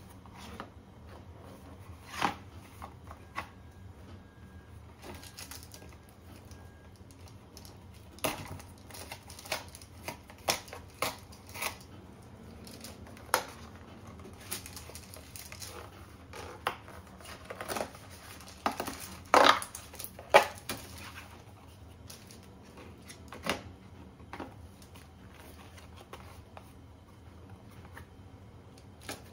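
Kitchen utensils and dishes being handled: scattered clicks, taps and clinks at irregular intervals, with the loudest cluster of clinks about twenty seconds in.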